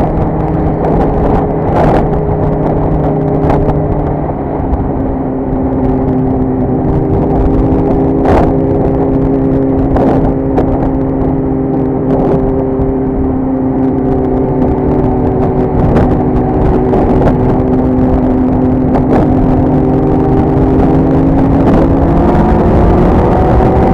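Motorcycle engine running steadily at highway cruising speed, over wind and road noise, with a few sharp clicks. Near the end the engine note rises as the bike accelerates.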